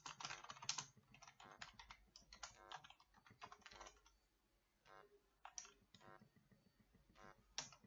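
Faint computer keyboard typing: runs of quick keystrokes, thinning out about halfway through, then a few more keys near the end.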